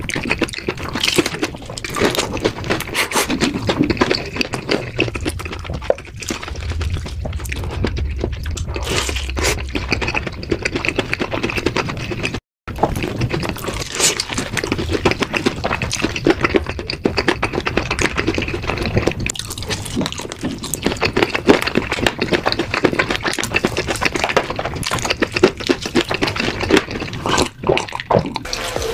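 Close-miked eating sounds: crunchy, sticky sauce-coated fried chicken being bitten and chewed, with wet crackling and squelching, broken by a brief gap about twelve seconds in.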